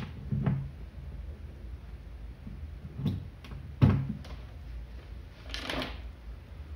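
Banana-plug test leads being pushed into and pulled from jacks on a wiring panel: several sharp clicks and knocks, the loudest about four seconds in, and a brief rustling scrape of the leads a little before the end.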